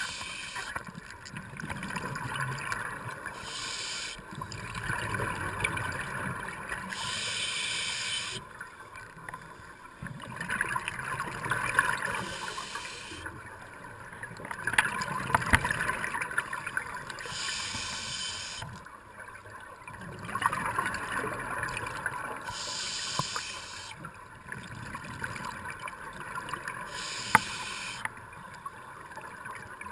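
Scuba diver breathing through a regulator, heard underwater: a burst of rushing exhaust bubbles every four to five seconds, with gurgling breath sounds in between.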